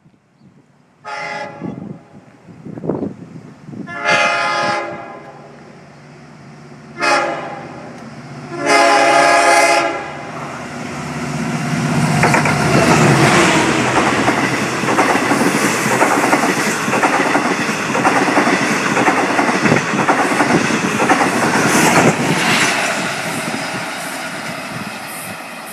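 LIRR DM30AC diesel locomotive's horn sounding four blasts in a long-long-short-long pattern, the crossing signal, the last the longest. Then the locomotive and its coaches pass close by, diesel engine running and wheels clattering over the rail joints, fading near the end.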